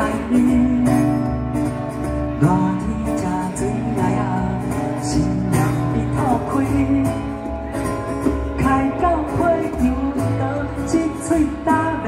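Live acoustic song: a man singing over acoustic guitar strumming, with hand drumming on a djembe keeping a steady beat.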